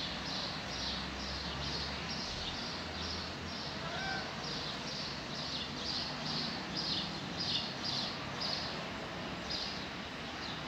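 Cicada calling from the trees: a steady train of short, high-pitched rasping pulses, about two to three a second.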